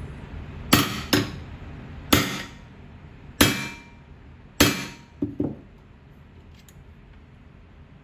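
Hammer striking a steel C-frame ram that holds a male dimple die, five sharp blows with a brief metallic ring, dimpling the aluminium tip rib over a female dimple die set in a hand-held bar. Two lighter knocks follow the last blow.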